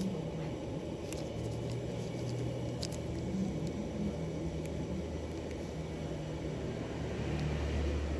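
Steady low motor rumble with a hum that shifts a little in pitch, and a few faint clicks.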